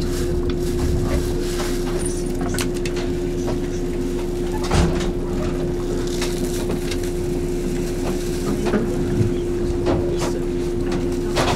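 Steady hum of a stopped electric train at the platform, with passengers' footsteps and light knocks passing close by and a louder knock about five seconds in.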